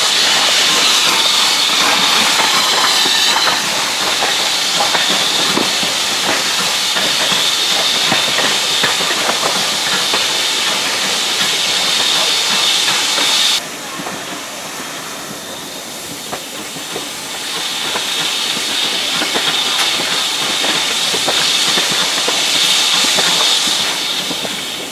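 Steam train hissing and running, a loud steady hiss. It drops suddenly about halfway through and swells back a few seconds later.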